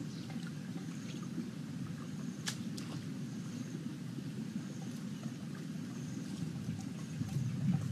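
Outdoor background: a steady low rumble, with one sharp click about two and a half seconds in and faint high chirps repeating over it.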